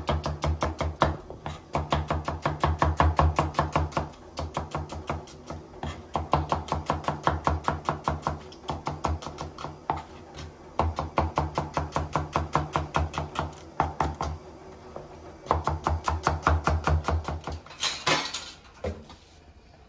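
Kitchen knife slicing shallots on a plastic cutting board: rapid, steady chopping strokes in runs with short pauses between them. A brief louder noise comes near the end.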